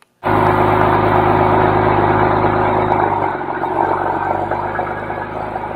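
Porsche 997 Turbo's twin-turbo flat-six engine running at idle, a steady even note. The tone shifts slightly about three seconds in.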